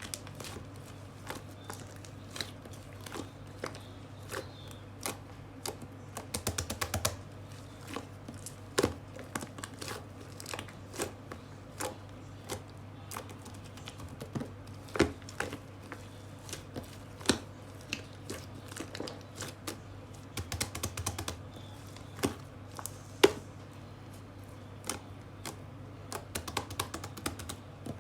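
Typing on a computer keyboard: irregular key clicks with a few quick runs of keystrokes, over a steady low hum.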